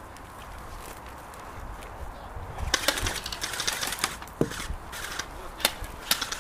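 Sharp clicks and knocks from an airsoft skirmish, over a low rumble. A quick cluster comes about three seconds in, then a few single clicks.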